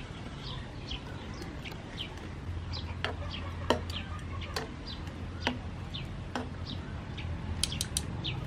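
Scattered light clicks and clinks from metal tongs and a wire-mesh strainer as boiled broccoli is scooped out of a pan of hot water, over a low steady hum.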